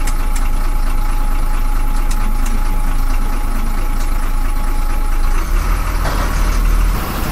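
Vehicle engine idling, heard from inside the cabin: a steady low rumble with a faint steady tone above it that stops about five seconds in. The low rumble swells briefly near the end.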